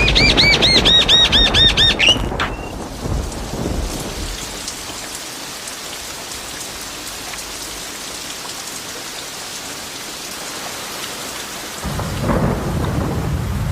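Steady rain with thunder rumbling, loudest at the start and building again near the end. During the first two seconds there is a quick series of high, arching chirps, about four or five a second.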